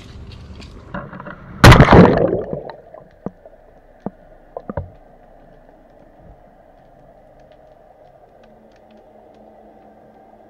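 Weighted crab pot splashing into the sea about two seconds in, followed by a few sharp knocks as it sinks and settles, then a faint steady underwater hum.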